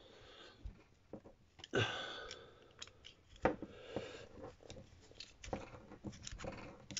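Brass wool being packed into a small brass fitting with a thin metal rod: scratchy rustling of the wire wool with light metallic clicks and scrapes, the loudest rasps about two and three and a half seconds in.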